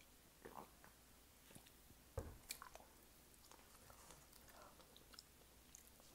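Near silence, broken by faint swallowing and mouth sounds after a sip of bottled water, and a soft thump about two seconds in.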